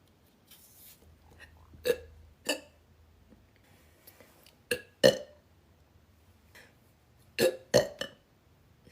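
A young woman burping: six short burps in three quick pairs, about two seconds in, around the middle and near the end.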